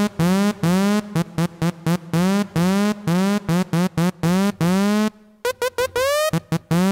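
Massive software synthesizer lead patch playing repeated short notes, several a second, each swooping up in pitch at its start from a pitch-envelope modulation. After a short break about five seconds in, the upward swoops are slower and longer.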